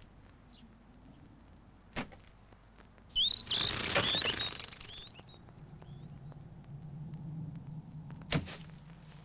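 Cartoon sound effects: sharp thuds at about two seconds and near the end, the jumper's landings, and about three seconds in a loud burst of rustling with birds chirping and flapping for about a second. A low steady hum comes in after about six seconds.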